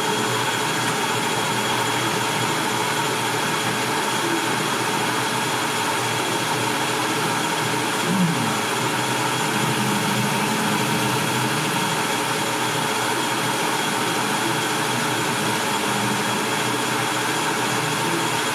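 Metal lathe running steadily on power feed, its spindle and gear drive making a constant whir with several steady tones through the final finishing passes on a rifle barrel's muzzle end.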